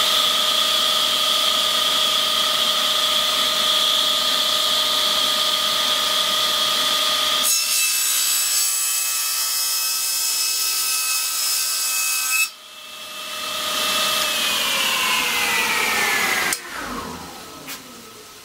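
Table saw running at full speed, its carbide-tipped blade cutting across a corner of a solid-surface Corian cutting board for about five seconds in the middle, which changes the sound of the saw. After the cut it runs free, then is switched off and winds down with its whine falling in pitch, and a steady rushing noise in the background stops abruptly near the end.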